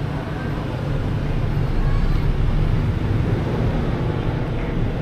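Steady low rumbling outdoor noise, strongest in the bass, growing slightly louder about a second in.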